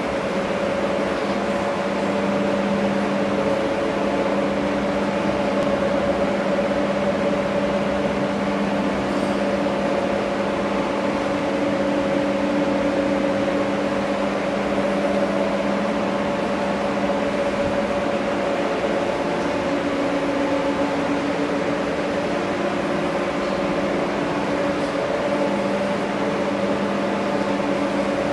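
Hydraulic pump unit of a Durma HAP 25/60 hydraulic CNC press brake running, a steady mechanical hum with a few constant tones.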